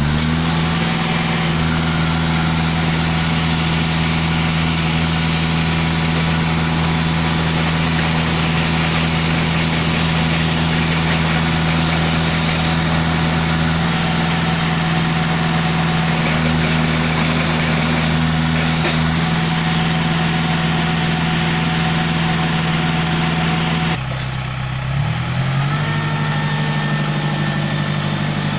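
Engine of a self-loading concrete mixer running steadily at raised speed. About 24 seconds in it drops back briefly, then revs up again.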